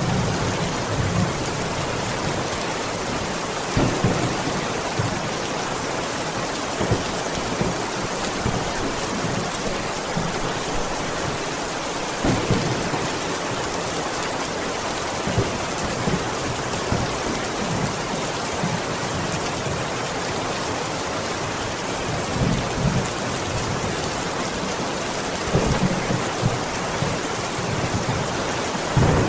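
Heavy rain falling steadily on a window, an even hiss, with occasional brief low thumps scattered through it.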